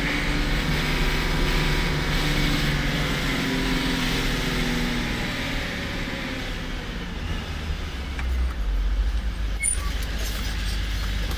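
A truck's diesel engine running steadily with road noise as it drives. A deeper rumble swells about two-thirds of the way through as a large truck comes up from the other way and passes close by.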